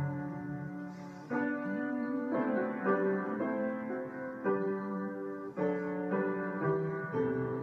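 Solo piano playing slow, sustained chords that change about once a second.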